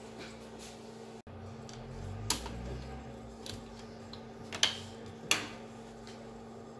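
Plastic hinge cover and bezel of a laptop screen housing clicking as they are pressed into place: a few sharp clicks, the loudest about two and a half, four and a half and five seconds in, over a steady low hum.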